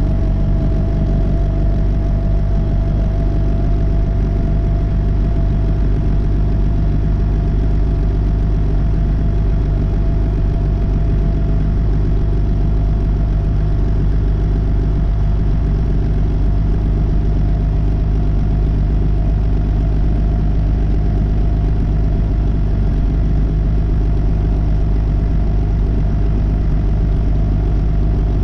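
Loader tractor engine running steadily as the tractor drives along the road: a deep, even drone with a thin steady whine held over it.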